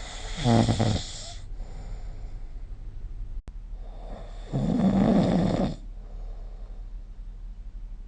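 A person snoring: two long snores about four seconds apart. The first one's pitch falls toward its end.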